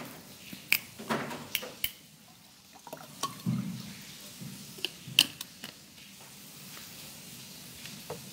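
A small plastic water bottle and a drinking glass being handled at a desk: a string of sharp clicks and light knocks of plastic and glass, with water poured into the glass.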